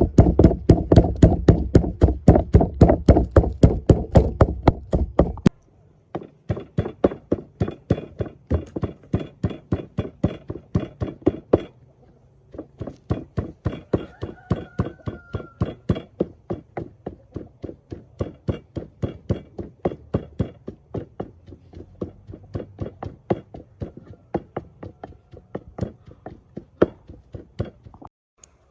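Rapid, even chopping on a cutting board, about four strokes a second, in three runs with short breaks between them.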